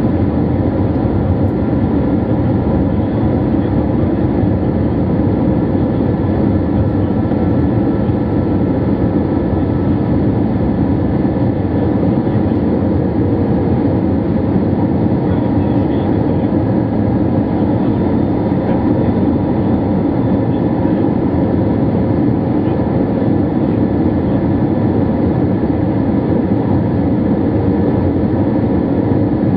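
Airbus A321-200 cabin noise in flight: a steady, even rumble of jet engines and rushing air heard from inside the cabin, with faint steady tones above it.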